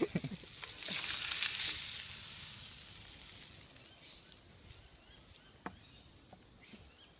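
Tilapia fillet sizzling in butter on a hot pan over a campfire. The sizzle is loud about a second in and fades away over the next few seconds. A single light tap comes near the end.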